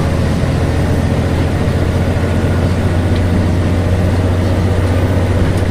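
Volvo B7LA bus's diesel engine running with a steady low drone, heard from on board.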